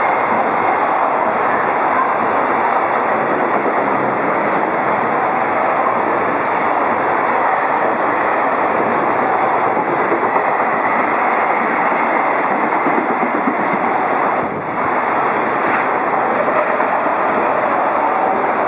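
Container wagons of a freight train rolling past at speed, wheels running on the rails in a loud, steady rush and rattle. The noise dips briefly about fourteen and a half seconds in.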